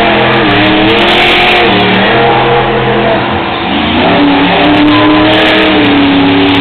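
Grave Digger monster truck's supercharged V8 engine revving hard on throttle. Its pitch sags and then climbs sharply again about four seconds in.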